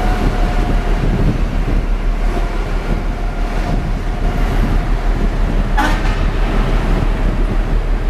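Wind rumbling on the microphone over the wash of heavy breaking surf, loud and steady. A brief higher-pitched sound cuts through about six seconds in.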